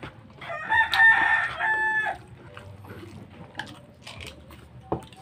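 A rooster crowing once, a single drawn-out call of about a second and a half that drops at the end. Faint chewing and hand-on-plate clicks follow.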